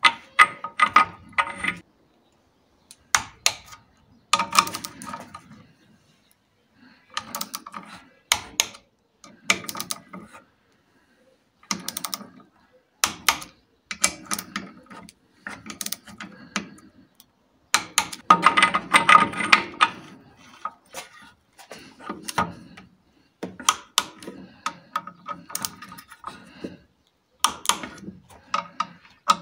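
Ratchet wrench clicking in short bursts, with pauses and metal clinks between, while bolting up the oil pump of a 1.3 Multijet diesel engine.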